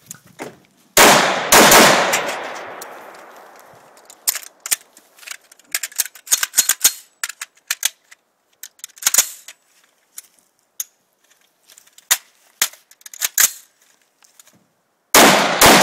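AR-15 rifle firing: two shots about half a second apart, each with a long fading tail. A long stretch of small scattered clicks and rattles follows as the rifle and gear are handled, then two more quick shots near the end.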